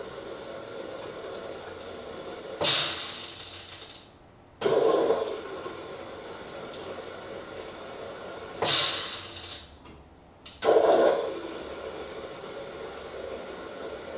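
Carimali Multi coffee machine's milk foaming device and milk lines being flushed with fresh water in an intermittent rinse cycle. Each round starts suddenly with a rush of water and air, runs for a few seconds, ends in a hiss and stops briefly, repeating about every six seconds.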